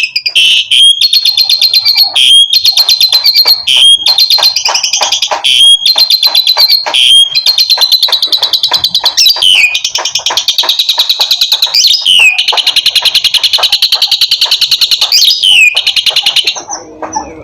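Asian pied starling calling agitatedly: fast, loud runs of high repeated chattering notes broken by a few rising whistled slurs, stopping shortly before the end. This is the aggressive 'emotional' calling used to challenge a rival.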